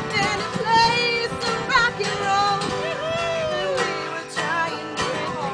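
A woman singing to two strummed acoustic guitars.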